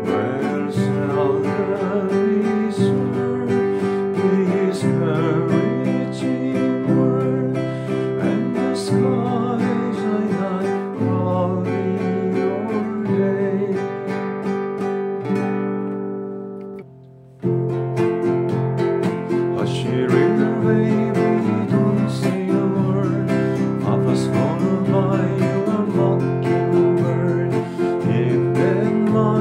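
Nylon-string classical guitar strummed in chords that change every second or two. The playing dies away about 16 seconds in, stops for about a second, then starts again.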